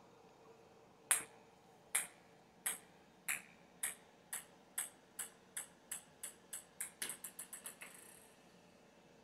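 A ping-pong ball bouncing on a hard vinyl floor: sharp clicks, the first the loudest, coming quicker and fainter until they run together and the ball settles about eight seconds in.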